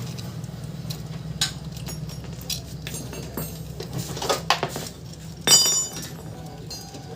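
Metal tools and motorcycle engine parts clinking in scattered light knocks while a timing chain is being fitted, the sharpest about five and a half seconds in with a short metallic ring. A steady low hum runs underneath.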